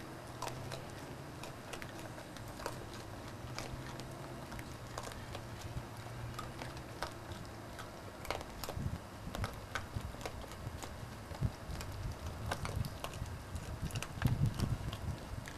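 Animals feeding on scattered seed: sparse, crisp crunching clicks of chewing. From about halfway, muffled low thumps and rubbing as an animal's fur brushes against the camera, loudest near the end.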